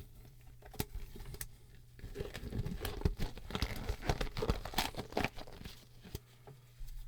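Rubber gloves being pulled on and worked over the hands: two sharp clicks about a second in, then a few seconds of dense crinkling and rubbing.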